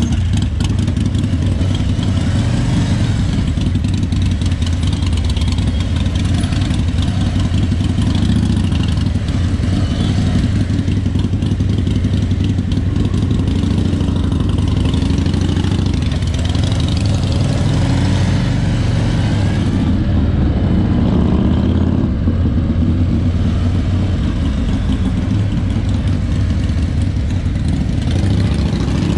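Harley-Davidson Road King's Milwaukee-Eight 107 V-twin engine running under way at low speed, its deep exhaust note rising and falling in pitch several times as the throttle is opened and closed.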